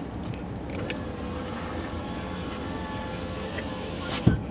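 Steady low rumble of a car running, with a faint steady hum over it and one short knock near the end.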